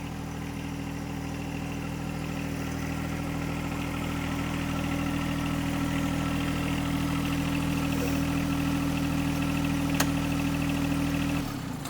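John Deere 1025r compact tractor's three-cylinder diesel engine running at a steady speed, then shut off near the end, the sound stopping abruptly.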